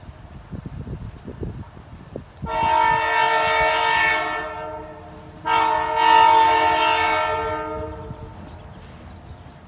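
Canadian Pacific diesel locomotive sounding two long blasts on its air horn as it approaches. The first blast comes about two and a half seconds in, the second about three seconds later. Both are chords of several tones over a low rumble.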